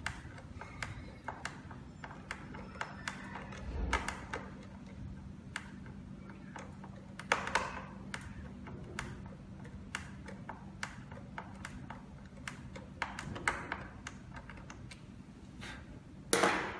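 Small screwdriver turning the screws of a DL201F fingerprint door lock's metal faceplate: scattered small metallic clicks and taps, with a few louder knocks about four and seven seconds in and a louder clatter near the end.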